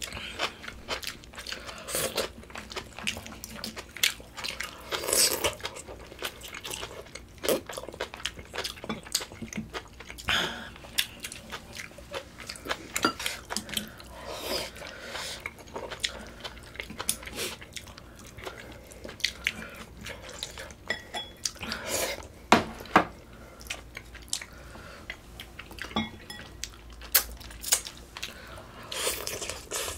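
Close-miked eating of Korean pork-bone soup (gamja-tang): chewing and biting, with many short clicks of spoons and chopsticks against bowls throughout.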